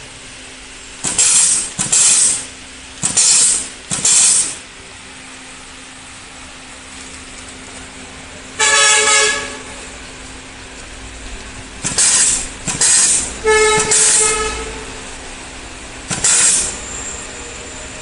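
Pneumatic wire-stripping and terminal-crimping machine cycling. It gives about nine short, loud blasts of compressed-air hiss from its air cylinders and valves, in quick pairs at first, two of them with a brief whistling tone, over a faint steady hum.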